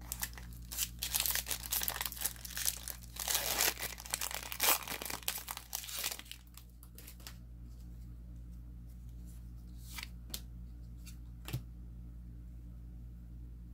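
Foil wrapper of a Magic: The Gathering Core 2021 collector booster pack being torn open and crinkled by hand, a dense crackling for about six seconds. After that come only a few soft clicks.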